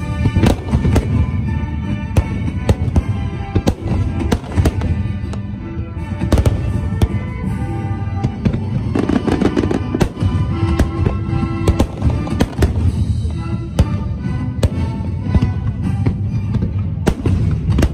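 Aerial firework shells bursting in quick succession, a dense run of cracks and booms, with music playing underneath.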